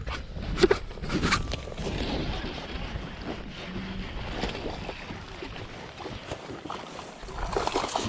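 Wind buffeting the microphone aboard a small fishing boat, a low rumble that eases off in the middle, with a few sharp knocks in the first second and a half.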